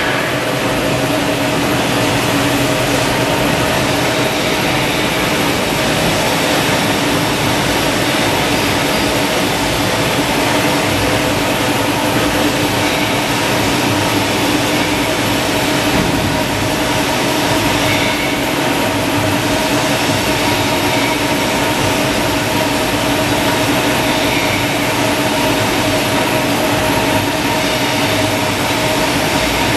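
FJ-P1092-3500LX paper tissue maxi-roll and toilet-roll rewinder line with its log saw running: a loud, steady mechanical din with a constant hum through it.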